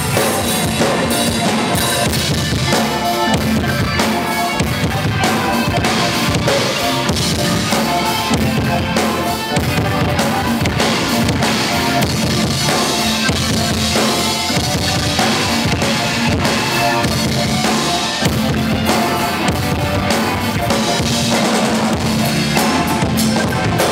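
Rock band playing a song live on stage at a soundcheck: drum kit, electric guitars, bass guitar and keyboard.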